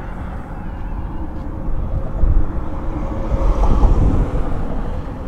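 Wind rumbling on the microphone, with a steady engine hum coming in about two seconds in.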